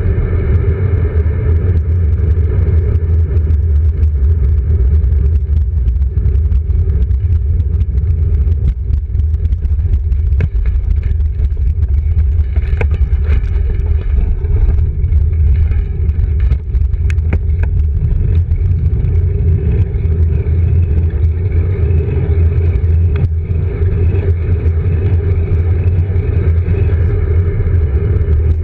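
Wind buffeting and road rumble picked up by a handlebar-mounted GoPro on a road bike riding along pavement: a loud, steady low rumble, with a few light clicks about halfway through.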